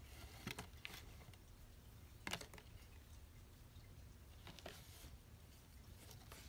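Faint, scattered rustles and soft taps of cardboard and paper as a cat noses and pushes into a box, the loudest a little over two seconds in.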